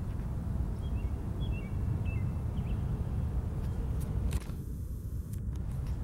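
Steady low rumble of outdoor background noise, with a few faint high chirps from a small bird about a second in and several sharp clicks near the end.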